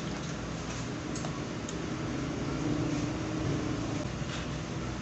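Steady low background hum with a few faint clicks of eating by hand: squid being picked apart with the fingers and chewed.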